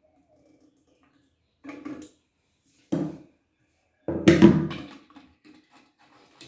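Three short knocks and rubs of handling, the last the loudest and fullest, as the plastic locknut under a toilet tank is worked by hand to tighten the fill valve.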